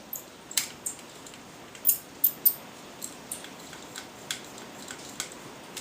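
Irregular light clicks and taps of screws, nuts and frame parts being handled during assembly of a multicopter frame, with a few sharper clicks about two seconds in.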